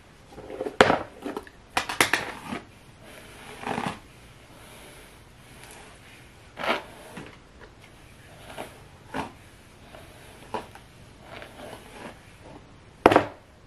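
Irregular rustling, scraping and knocking from hands working through long wig hair and handling small objects. The noises come in short scattered bursts, with the loudest clatter near the end.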